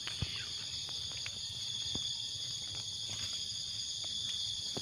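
A steady, high-pitched chorus of insects shrilling in several pitches at once, with a few faint ticks and rustles as hands dig through loose soil and dry grass.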